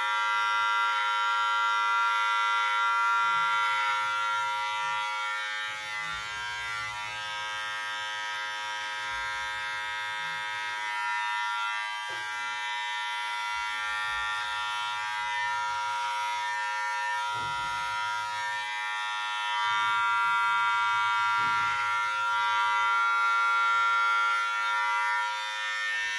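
Wahl Senior electric hair clipper running steadily while trimming beard hair: a constant buzzing whine with many even tones. It swells and fades a little as it works across the beard.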